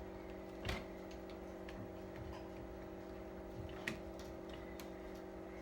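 Irregular light clicks and taps of plastic TV parts and a cable plug being handled and fitted during reassembly, two of them more distinct, over a low steady hum.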